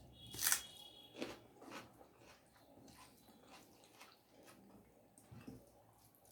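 A person eating close to the microphone: chewing and biting with wet mouth clicks and smacks. The loudest, sharp bite comes about half a second in, with smaller clicks after it.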